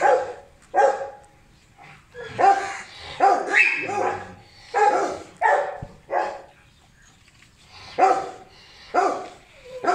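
Beagles barking, about a dozen short barks in runs with pauses of a second or two between them.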